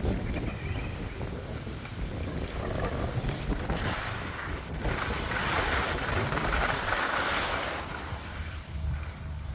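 Wind buffeting the microphone while skiing downhill, over the hiss of skis sliding and scraping on groomed snow, which swells for a few seconds about halfway through.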